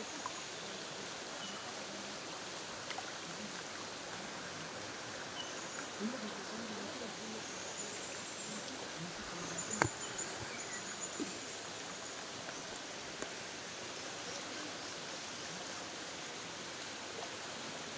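Steady rush of spring water running over rocks into a shallow pool, with a single sharp click about ten seconds in.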